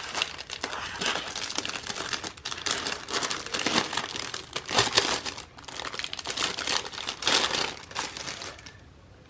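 Crinkly packaging being handled and unwrapped by hand, with irregular crackling and rustling that dies away near the end.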